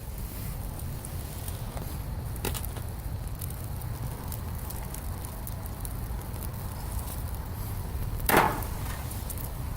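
Wood bonfire burning with scattered crackles and pops over a steady low rumble, and one louder, brief pop about eight seconds in.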